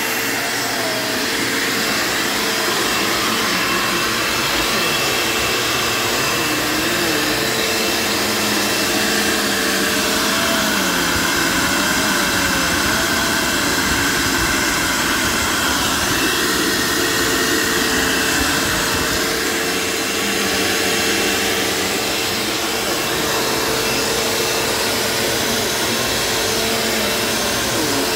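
Dirt Devil Featherlite bagged vacuum cleaner running steadily, with a high motor whine. Lower tones waver in pitch now and then as it is worked over the floor.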